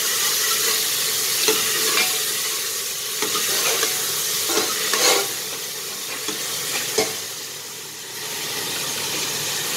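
Chopped onion, tomato and green chilli sizzling in oil in an open aluminium pressure cooker, stirred with a spoon that knocks and scrapes against the pot every second or so.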